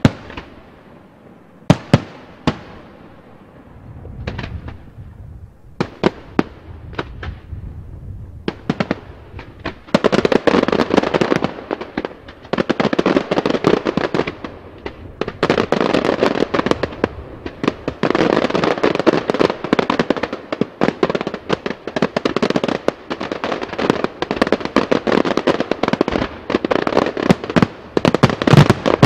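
Daytime aerial fireworks display: a few separate loud bangs spaced a second or more apart, then from about ten seconds in, long dense volleys of rapid-fire reports coming in waves.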